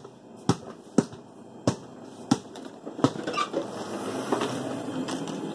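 A basketball being dribbled on a hard floor: a run of sharp bounces about two-thirds of a second apart, thinning out after about three seconds over a low hubbub of background voices.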